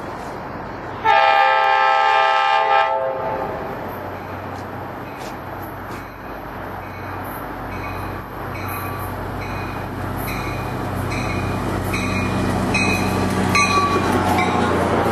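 Metro-North F40PH-3C diesel locomotive sounding its horn in one blast of about two seconds, starting suddenly. Then its engine and wheels grow steadily louder as it approaches and passes at speed.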